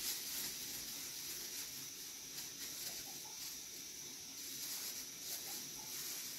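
Plastic-gloved hands rolling and pressing a ball of minced-meat stuffing, a faint rustle and squish over a steady hiss.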